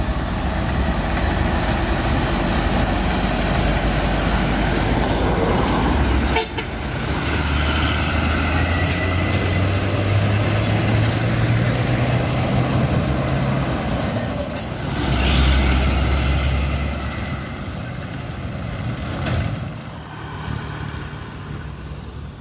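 Diesel trucks, among them a Mitsubishi Fuso and a Colt diesel, driving along the road with their engines running under load. The sound is loudest about fifteen seconds in.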